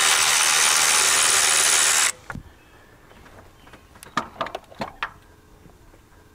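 Cordless electric ratchet spinning out an A/C compressor mounting bolt, running steadily and stopping sharply about two seconds in. A few light metal clunks and clicks follow as the freed compressor is handled and lifted out.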